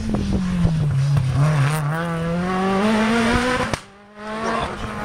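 Rally car's engine passing at stage speed: its note drops, then climbs steadily as the car accelerates away. The sound cuts off abruptly about four seconds in, and a steady engine note returns shortly after.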